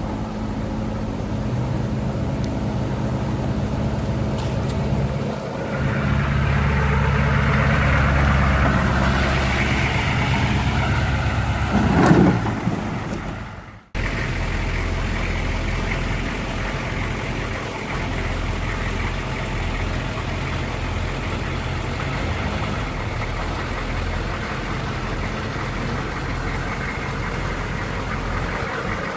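Vehicle engine running, louder for several seconds from about six seconds in, with a brief rising whine near twelve seconds. The sound breaks off abruptly about fourteen seconds in, and an engine then idles steadily.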